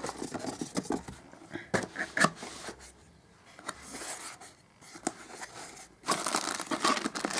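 Handling noise from a small cardboard box and the plastic-bagged accessories inside it: scattered taps and clicks of the flaps and contents, and crinkling plastic that becomes denser and louder about six seconds in.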